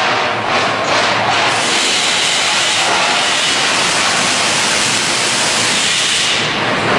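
Steam hissing steadily and loudly as hot, freshly galvanized steel guardrail beams are quenched in a water cooling tank, over a low mechanical rumble from the line.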